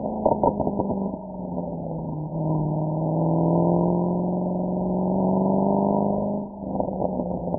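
Mercedes-AMG SL63's V8 exhaust under acceleration, its note climbing steadily in pitch. There is a short burst of crackles near the start, and another near the end just after the note briefly drops away.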